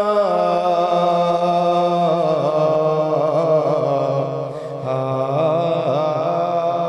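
A man singing a rubai, a devotional Urdu quatrain, solo and without instruments, holding long drawn-out notes with wavering ornaments. There is a short break for breath about four and a half seconds in.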